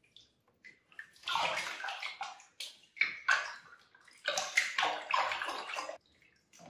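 Bath water sloshing and splashing in a plastic tub as a wet kitten is washed by hand, in uneven bursts that begin about a second in and stop shortly before the end.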